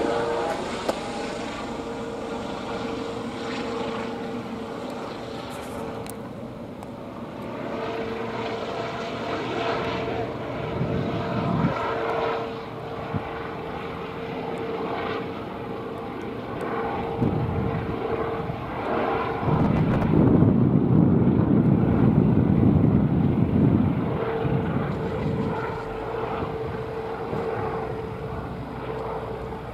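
Airbus H135 (Eurocopter EC135) twin-engine helicopter flying over at a distance: a steady rotor and turbine rush with a steady whine on top. The low rush swells louder for a few seconds about two-thirds of the way through.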